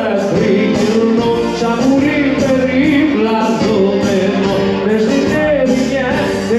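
Live Greek band music led by bouzouki, with a voice singing, playing without a break.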